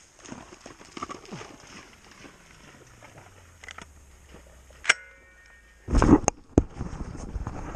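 Shotgun fired: a sharp report about five seconds in, then a louder, heavier one about a second later, followed by a couple of smaller knocks.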